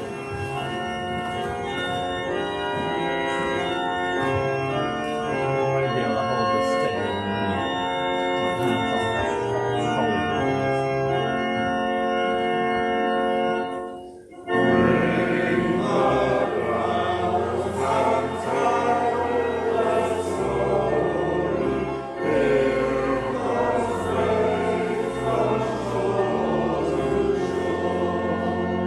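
An organ plays a hymn introduction in steady, held chords. About halfway through it pauses briefly, and the congregation then sings the hymn together with the organ.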